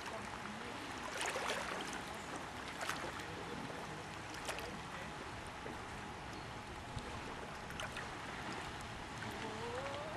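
Loch water lapping and splashing against a dock, a steady wash of noise with a few brief sharper sounds scattered through it.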